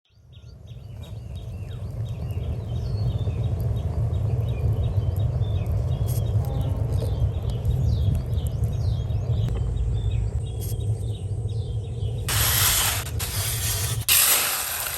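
Small birds chirping repeatedly over a steady low rumble. About twelve seconds in, a loud rushing hiss comes in, briefly drops near the end, then returns.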